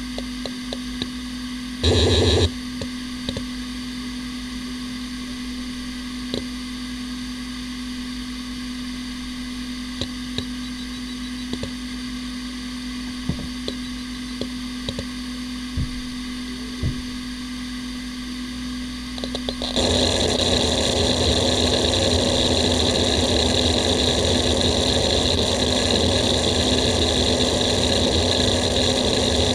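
Hitachi Ultrastar 15K300 15,000 rpm SAS hard drive spinning with a steady spindle whine, its heads ticking now and then while it initialises and idles, with one brief loud burst of seeking about two seconds in. About twenty seconds in, a random seek test starts and the head actuator chatters continuously and loudly over the spin, the sound of a drive in good health.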